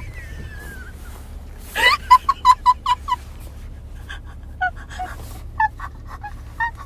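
A woman bursts into laughter: a rising whoop, then a quick run of about five 'ha-ha' pulses a second, trailing into softer breathy giggles. Under it runs the low steady rumble of the car cabin.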